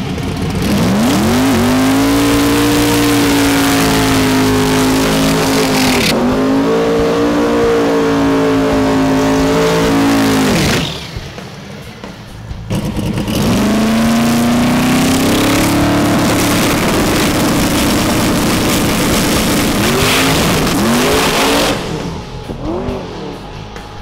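Pontiac Firebird drag car's engine revved up hard and held at high revs with tyre smoke, dipping briefly about six seconds in. It drops off at about eleven seconds, then revs up and holds again for about nine seconds before backing off near the end.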